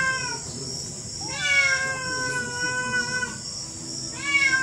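Kitten meowing three times: a short meow at the start, a long drawn-out meow of about two seconds from about a second in, and another short meow near the end.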